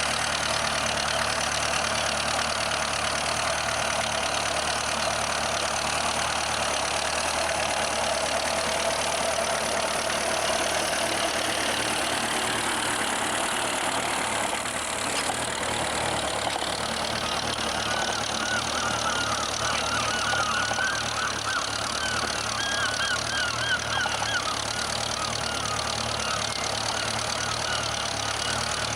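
Ferguson TEF tractor's four-cylinder diesel engine running steadily while pulling a single-furrow reversible plough, with a high wavering chirping over it in the second half.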